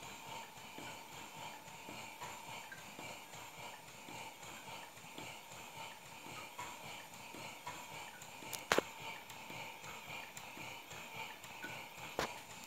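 Cylinders and rods of a 1:8 scale kkStB 178 model locomotive running on compressed air at 0.5 bar, making a steady rhythmic puffing and clatter over a background hiss. There are two sharper clicks, one about two-thirds of the way through and one near the end.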